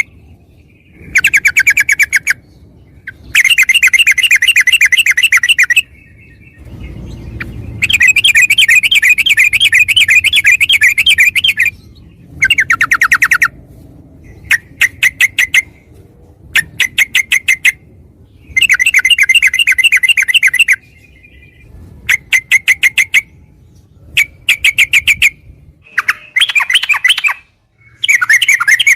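Yellow-vented bulbul (trucukan) song: about a dozen bursts of fast, rapidly repeated chattering notes, each lasting a second to a few seconds, separated by short pauses.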